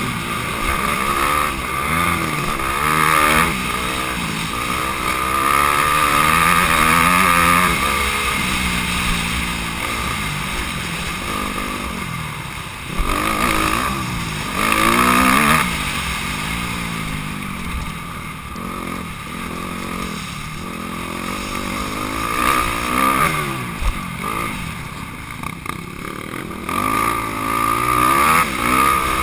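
Honda CRF250R's single-cylinder four-stroke engine revving hard and backing off over and over as it is raced, heard up close from a camera mounted on the bike.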